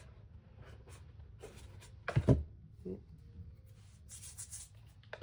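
Cardboard and craft tools being handled on a tabletop: a few light taps and knocks, one louder knock about two seconds in, and a brief scrape of cardboard a little after four seconds.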